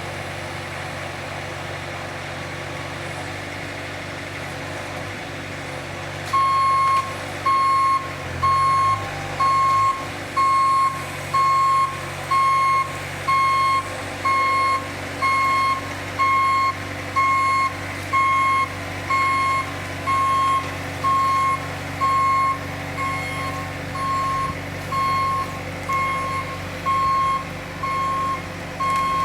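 Heavy vehicle's engine running steadily; about six seconds in its backup alarm starts, a loud single-tone beep repeating about once a second while the vehicle reverses.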